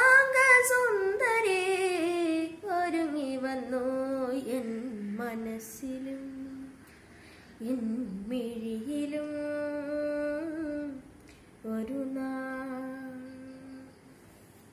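A boy singing unaccompanied, wordless melodic phrases with long held notes and sliding pitch, in several phrases broken by short pauses, fading away near the end.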